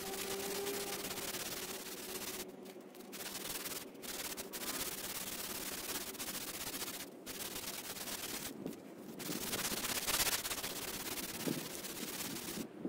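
A strip of fine sandpaper drawn back and forth around the crank pin of a Honda GX340 crankshaft, polishing the journal. It is a steady scratchy rasp, broken by about five brief pauses between strokes.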